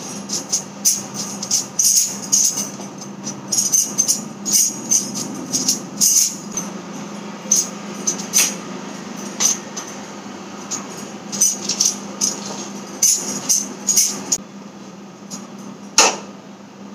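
Irregular clinks and taps of roti-making at a gas stove: utensils knocking and bangles jingling, several a second at times, with a loud click about a second before the end, over a steady low hum.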